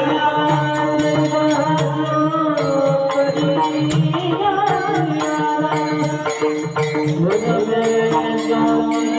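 Marathi devotional bhajan sung in a Bhairavi tune: a singer's voice over held instrumental notes, with a drum and small cymbals keeping a steady beat.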